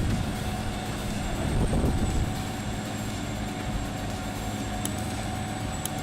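Komptech Crambo 5000 shredder running steadily as it shreds tree roots: a constant engine drone with a high whine above it, swelling louder just at the start and again about two seconds in.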